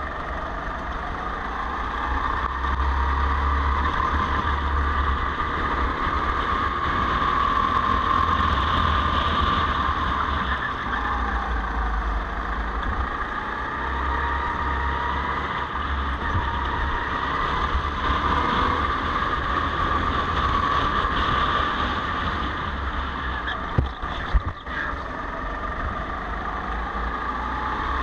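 Go-kart engine heard from the driver's seat, its whine rising in pitch along the straights and dropping into the corners, with wind rumbling on the microphone. Two short knocks a few seconds before the end.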